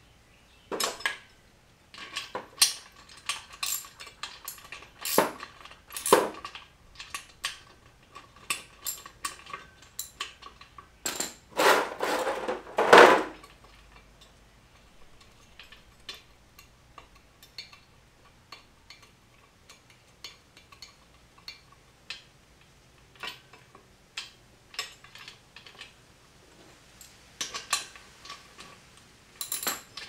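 Metal clinking and knocking as bolts are worked into a steel dumbbell rack frame with hand tools: irregular sharp clicks and taps, with a louder run of clattering metal near the middle.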